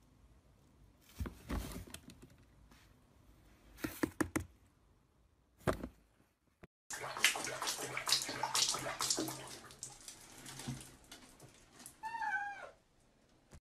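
A few soft knocks and rustles, then water sloshing and splashing in a small tub, ending with a single meow from a cat that falls in pitch.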